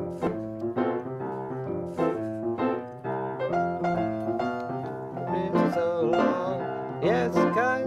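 Piano played with both hands, a run of chords struck every half second to a second, each with a sharp attack that rings on over a sustained bass.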